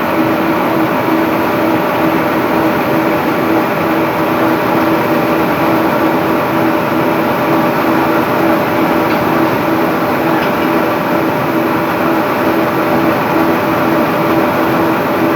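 Slitting machine running, a steady mechanical din with a constant humming tone.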